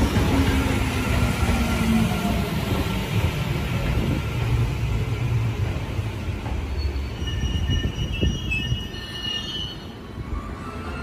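Tokyo Metro Tozai Line electric train slowing into the station: wheels rumble and a motor whine falls in pitch. High brake squeal sets in over the last few seconds as the train comes to a stop.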